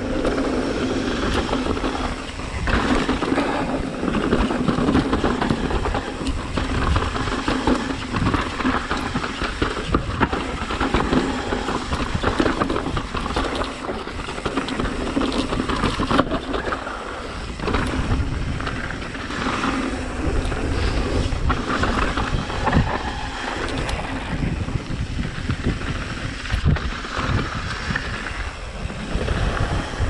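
Mountain bike ridden down a dirt trail: tyres rumbling over the ground, with the bike rattling and knocking over bumps throughout.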